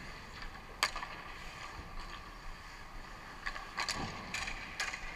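Ice hockey play: sharp clacks of sticks and puck, one loud one about a second in and a quick run of four near the end, over the steady hum of an indoor rink.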